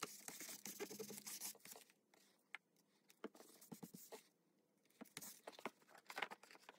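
Faint rubbing and rustling of hands smoothing paper over a chipboard folio, followed by a few light clicks and scrapes of handling on the table.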